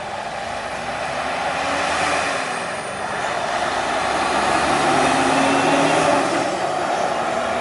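Kenworth semi tractor's diesel engine and exhaust as the truck drives past. The sound grows louder as it approaches and is loudest about five to six seconds in, as it goes by.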